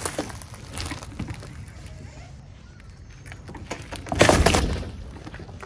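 Car tyre rolling onto a bundle of lemongrass stalks, which crackle and snap as they are crushed. About four seconds in comes a louder, short burst of crunching noise.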